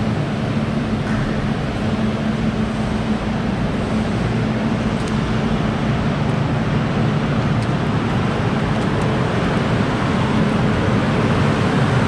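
Steady machinery noise with a low, even hum, unbroken throughout.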